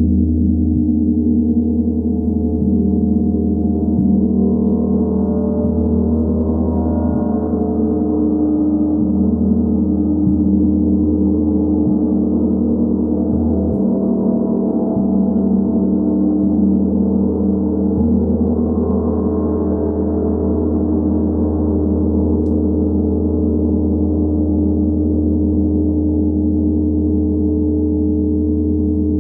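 Large hand-hammered Tibetan gong ringing on after being played with a felt mallet: a deep, steady hum of many overlapping tones, its higher overtones swelling and fading slowly, about twice.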